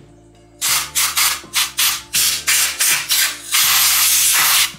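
Compressed-air blow gun blasting dust out of a chainsaw's internals: a rapid string of short hissing bursts starting about half a second in, then one longer continuous blast near the end.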